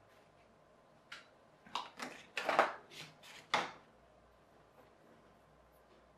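Black insulating tape being handled and pulled off its roll: a cluster of about eight short scratchy rasps over roughly two and a half seconds, stopping about two-thirds of the way through.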